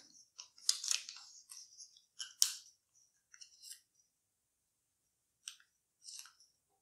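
Origami paper rustling and crackling as hands fold it and press a crease flat, in short crisp spells with pauses between, busiest in the first couple of seconds and thinning out after.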